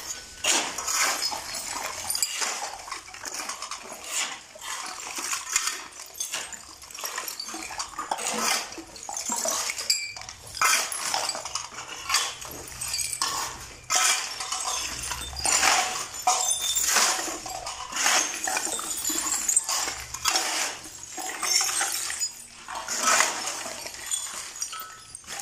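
Several shovels scraping across a concrete floor and knocking through a pile of soil, glass jars, bottles and cans as it is mixed by hand. There are repeated irregular scrapes and clinks.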